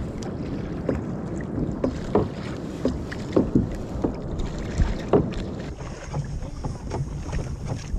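Water sloshing and lapping against a fishing kayak's hull, with wind on the microphone and a few brief knocks.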